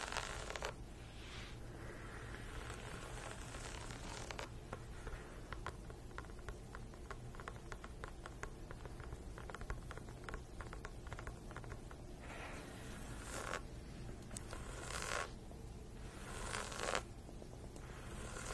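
Long fingernails scratching and tapping on a basketball: a quick run of light nail taps through the middle, with short scratching sweeps across the ball near the start and several more in the last few seconds.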